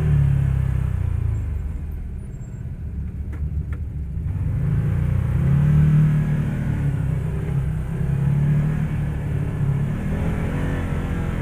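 Can-Am Maverick Sport 1000R side-by-side's V-twin engine running while driving, easing off about two seconds in and picking up again a couple of seconds later. Two faint clicks come in the lull.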